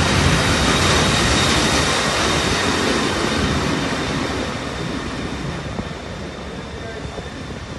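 Red SBB electric locomotive moving along the platform track: loud running noise with a steady high whine, strongest at first and slowly fading as it draws away.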